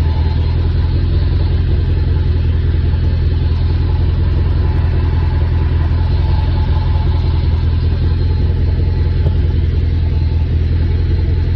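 Dodge Charger R/T's 5.7 L Hemi V8 idling with a steady, even low rumble.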